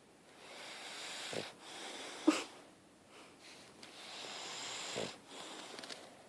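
Snoring in deep sleep: slow, wheezy breaths drawn in and out, with a short sharp snort a little past two seconds in.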